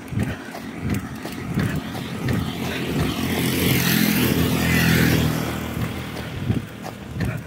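A motor vehicle drives past, growing louder for a few seconds and fading again, loudest about four to five seconds in. Running footsteps on asphalt beat a steady rhythm around it, plainest at the start and near the end.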